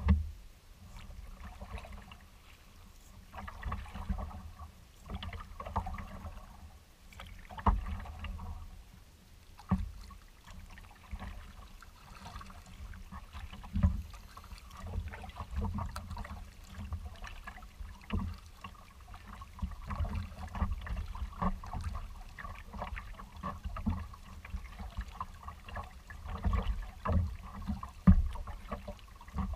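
A kayak being paddled across rippled open water: paddle strokes and small waves lapping against the hull, swelling and fading every second or two. A few sharper thumps sound now and then.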